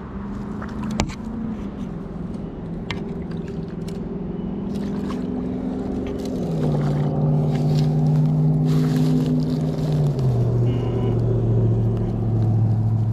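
An engine running steadily and growing louder, its pitch stepping down twice, about six and ten seconds in. A sharp knock comes about a second in, and there is scattered rustling.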